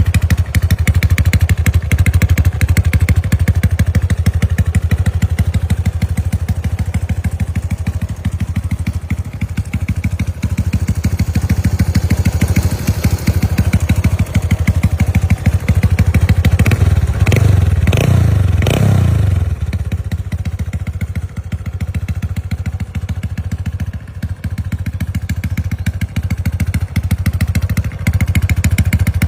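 Honda Supra 125's single-cylinder four-stroke engine idling through a gutted (bobok) exhaust, with a steady, loud, open exhaust note. About two-thirds of the way through, the throttle is blipped about three times in quick succession before it settles back to idle.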